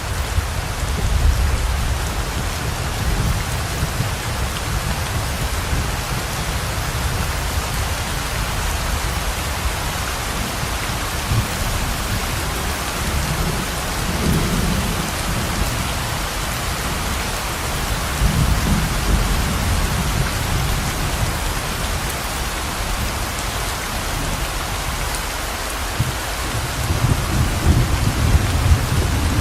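Steady heavy rain pouring, with low rumbles of thunder rolling in several times: shortly after the start, twice in the middle and again near the end.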